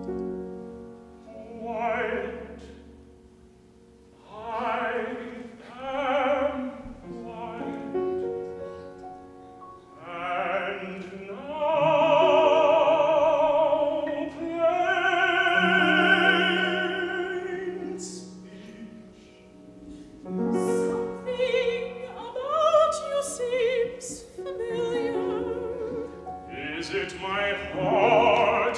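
Operatic singing with strong vibrato, in short phrases and a long held, sustained passage in the middle, over a piano accompaniment.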